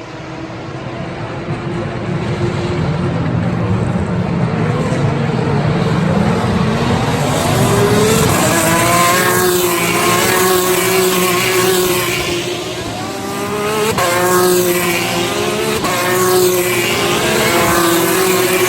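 Several racing cars' engines at full throttle, their notes climbing and dropping back through repeated upshifts as the cars accelerate past, growing louder over the first few seconds.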